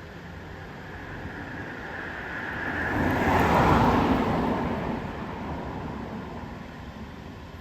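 A road vehicle passing by: its tyre and engine noise swells, peaks about three and a half seconds in, then fades away.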